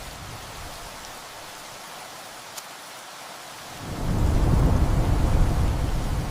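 Steady heavy rain, with a deep rumble of thunder swelling in about four seconds in and continuing to rumble.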